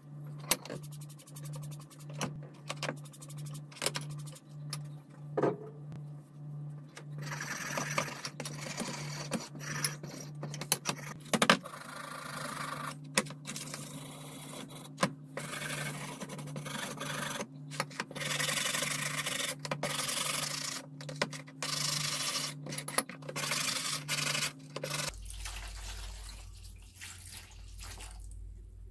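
Wire brush scrubbing a wet, rusty steel open-end wrench: scratchy scraping in quick back-and-forth runs, after a few light clicks and taps at the start.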